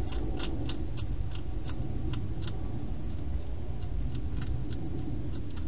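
Wild hedgehog feeding at a bowl, its mouth making sharp clicking sounds about three or four a second, thinning out after a couple of seconds, over a steady low rumble.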